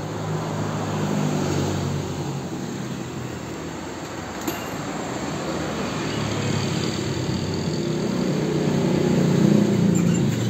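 Motor vehicle engines on the road passing by: a low hum that swells and fades over several seconds, loudest near the end, with one light click about four and a half seconds in.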